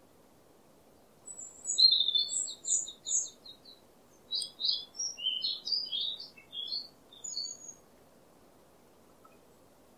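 A songbird singing: a string of quick, high chirps and trills from about a second in until near the eight-second mark, over a faint steady background noise.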